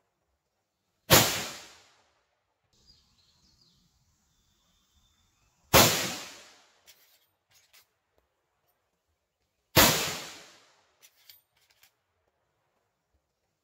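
Three shots from a Henry X lever-action .45-70 rifle with its factory thread protector and no muzzle brake, spaced about four seconds apart, each a sharp report that dies away over about a second. Faint metallic clicks of the lever being worked follow each shot.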